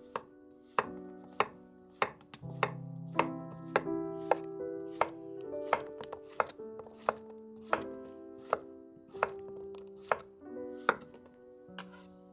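Chef's knife slicing a zucchini into rounds, each cut ending in a sharp knock on the wooden cutting board, about one and a half cuts a second. Soft background music plays underneath.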